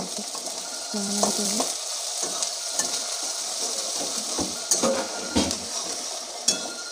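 Sliced onions sizzling in hot oil with garlic in a steel kadai, stirred with a metal spatula that scrapes and knocks against the pan, with a few sharp clinks near the end.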